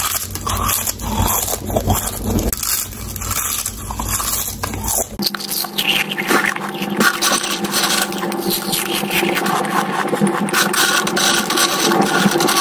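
Close-miked crunching and chewing of thin potato chips, a dense run of crisp crackles, with the dry rustle of a gloved hand rummaging through a pile of chips on a wooden board near the end.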